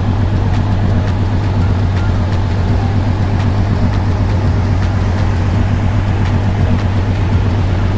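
Car engine running with a steady, even low drone.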